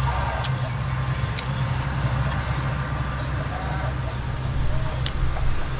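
A person eating and chewing, with a few short sharp clicks, over a steady low rumble that is the loudest thing heard.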